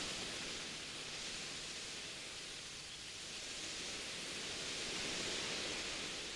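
Soft wind blowing, a hissing rush that eases off and swells again about five seconds in.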